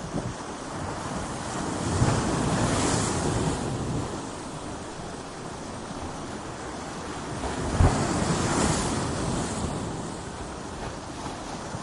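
Ocean surf breaking on a shore: waves crash about two seconds in and again near the eight-second mark, each one fading slowly into a long hiss of washing water.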